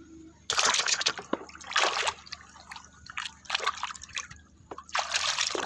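Water splashing and trickling in repeated bursts as a toy is washed by hand, starting about half a second in.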